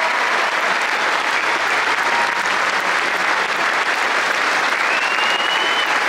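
Large stadium crowd applauding steadily in dense, even clapping, with a single whistle rising above it near the end.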